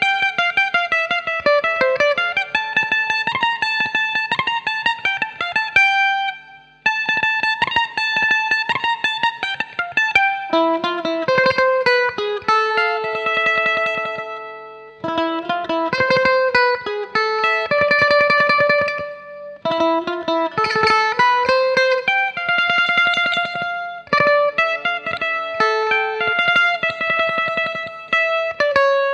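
Givson electric mandolin with a single-coil pickup, played through guitar amp plugins with effects: a melody of rapid tremolo-picked notes and held notes, with short breaks between phrases.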